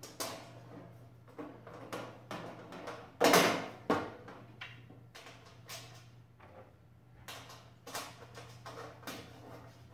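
Small metal clicks and knocks of bolts and washers being fitted by hand into a stainless steel patio heater reflector, irregular and of varying strength. About three seconds in, a louder scraping rush of the thin sheet-metal reflector being handled, lasting about half a second.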